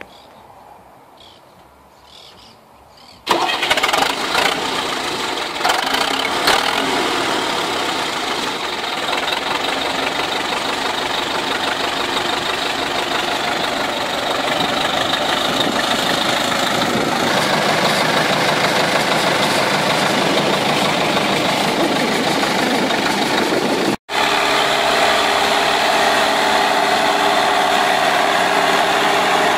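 Deutz-Fahr tractor's diesel engine running steadily under load while pulling a 28-disc harrow through the soil. The sound cuts in suddenly about three seconds in and drops out for a moment near the end, after which the engine's steady hum is clearer.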